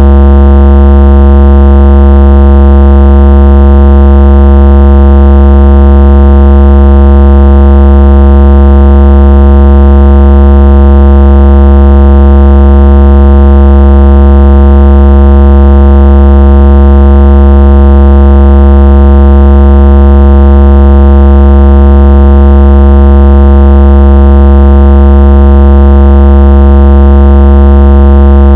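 Deep electronic bass buzz used as a phone-vibration and speaker bass-test sound: one very loud, unchanging low tone with a stack of overtones above it.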